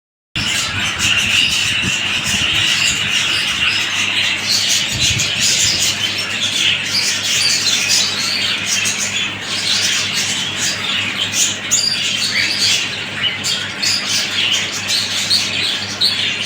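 A flock of caged ornamental birds in an aviary, many calling at once: a dense, continuous chatter of chirps and squawks.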